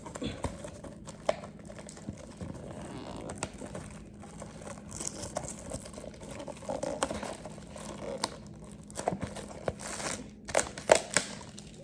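Cardboard and plastic packaging of a blind-box minifigure being handled and torn open: crinkling and rustling with scattered sharp clicks, busier and snappier near the end.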